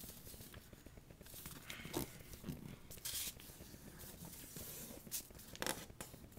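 A sheet of paper being folded in half and creased by hand: soft, scattered rustles and scrapes of paper.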